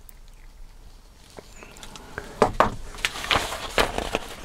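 Crackling of a paper instruction manual being lifted and bent, with a few sharp clicks of small plastic parts being handled, starting about halfway in.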